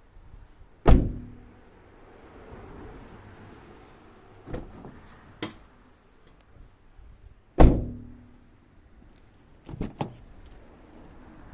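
Mazda Atenza (Mazda6) GJ wagon door shut twice, each closing a heavy thunk followed by a brief twangy 'bain' ring, an abnormal noise on closing. Smaller latch and handle clicks come between the two closings.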